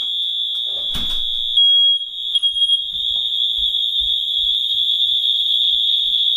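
Wheelock MT fire alarm horn sounding a continuous horn: one steady, high-pitched tone. There is a click about a second in, and the tone briefly changes around two seconds in before settling back to the steady horn.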